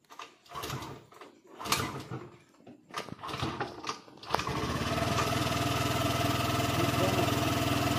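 Motor scooter being kick-started: for about four seconds repeated kicks fail to make the engine catch, which is put down to the ignition switch being off. Then the engine starts and idles steadily.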